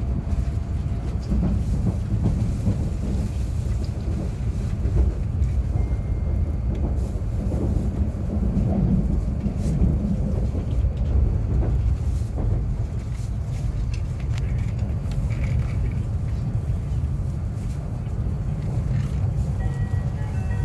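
Inside an E5 series Shinkansen car as the train pulls out: a steady low rumble from the running gear and traction equipment, with faint scattered ticks.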